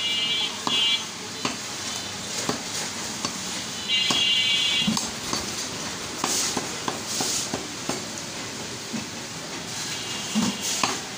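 Butcher's cleaver chopping beef on a wooden log block: irregular knocks, about one or two a second. A high-pitched tone comes and goes over it, loudest about four seconds in and again near the end.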